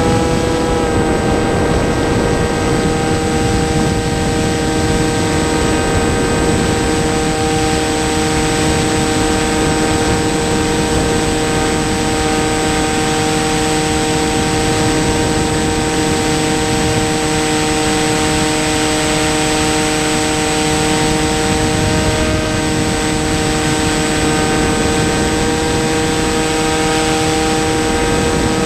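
Onboard sound of a large radio-controlled model airplane in flight: its motor and propeller running at a steady, even pitch that steps down slightly about a second in, over a constant hiss of air rushing past.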